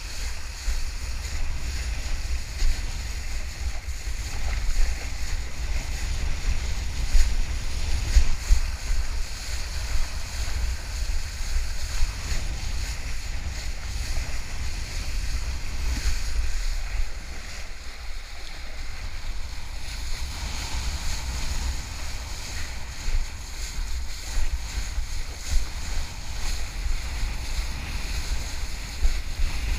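Wind buffeting an action camera's microphone in gusts, with a kiteboard skimming over choppy water and the hiss of its spray underneath.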